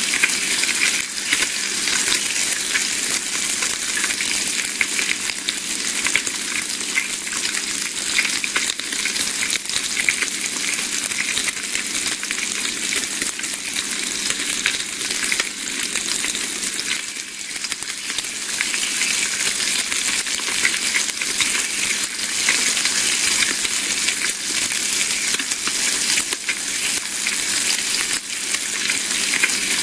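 Bacon frying in a pan, sizzling steadily with a dense, continuous crackle of spitting fat.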